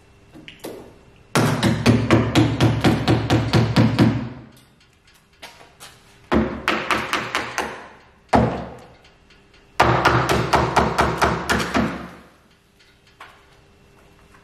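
Rubber mallet striking a fibreglass (GRP) boat hull in its mould, quick blows about five a second in several runs, to shock the hull free of the waxed mould.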